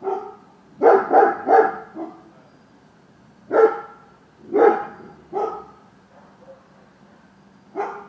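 A dog barking off and on: three quick barks about a second in, then single barks spaced a second or so apart, the last near the end.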